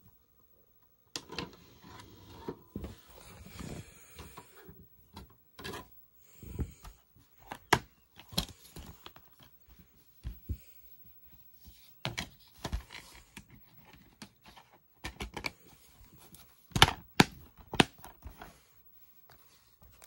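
Hard plastic being handled: a DVD player and a two-disc DVD case, with a run of sharp clicks, taps and rattles over rustling. The loudest clicks come near the end, as the case is snapped shut.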